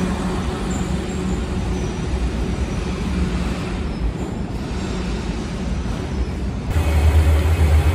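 Freight train rolling past: a steady rumble and rattle of wheels and cars, with a low hum running under it. About seven seconds in it gives way abruptly to a louder, deep steady hum.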